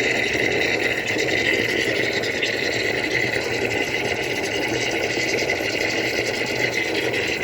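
DeLonghi EC9 espresso machine steaming water through its milk frother in a steady, unbroken run. This is the cleaning flush of the milk circuit after frothing milk.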